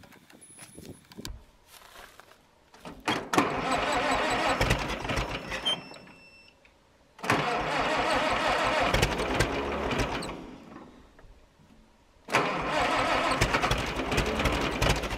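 Case VAC tractor's four-cylinder engine being cranked by its electric starter in three bursts of about three seconds each, with pauses between. The long-unused engine turns over but does not catch.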